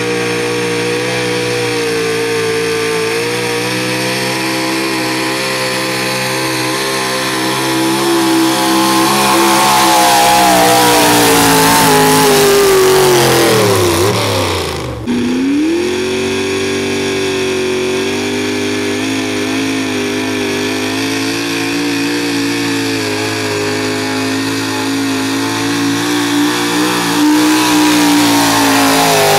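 Pulling pickups' engines running flat out under load, dragging a weight-transfer sled. The first engine holds a steady high pitch, then bogs down with falling pitch as the sled's weight builds. After a sudden break about halfway through, a second truck's engine runs at steady high revs.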